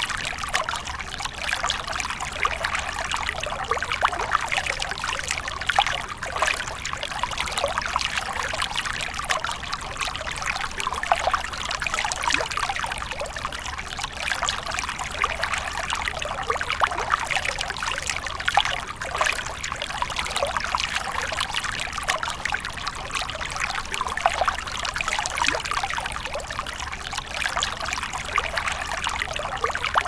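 Water running and splashing continuously, a steady trickling and spattering with many small quick splashes and no pauses.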